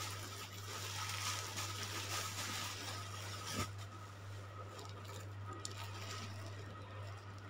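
Quiet room noise: a steady low hum with a faint hiss, and a single sharp click about three and a half seconds in.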